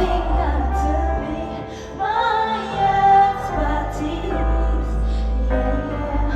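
A pop song performed live: female vocals sung over a track with a heavy bass line. The bass drops out for about a second near the start, then comes back in.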